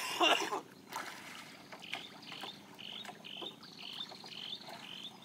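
A brief splash of water as a man swims, then a run of short animal calls repeating about twice a second, with a quick trill between the calls near the end.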